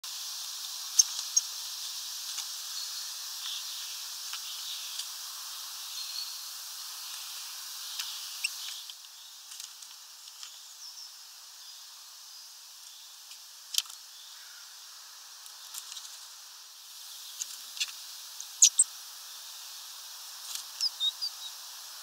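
Small birds chirping and calling in short, high notes scattered through, with a few sharp taps and clicks that stand out as the loudest sounds, over a steady outdoor hiss.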